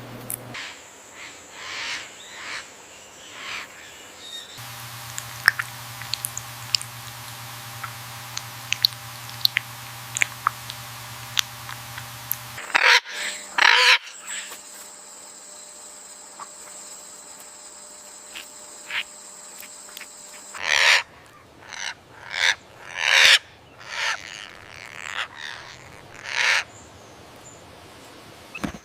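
Parrots calling: scattered sharp short chirps and ticks, then a series of loud harsh squawks, each a fraction of a second long, coming in a run near the end.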